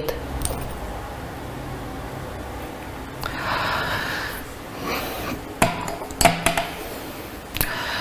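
Glass laboratory glassware being handled: a few short clinks and knocks of a test tube and bottle, some with a brief ring, and a soft rushing noise for about a second near the middle.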